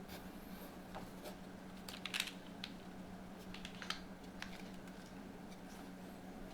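Mechanical keyboard with an FR4 plate, lubed Loga Chathai switches and GMK Tiramisu keycaps, typed on slowly: scattered single keystrokes, a few in quick succession about two seconds in and again around four seconds in, over a faint steady low hum.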